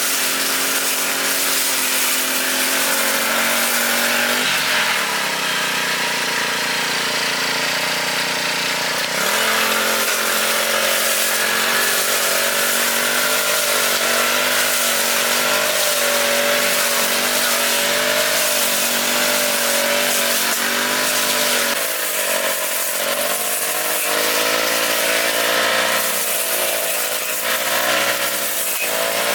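Lawn mower's small engine running steadily. Its pitch sags about five seconds in and picks up again about four seconds later, then dips once more a little after twenty seconds, as the engine labours and recovers.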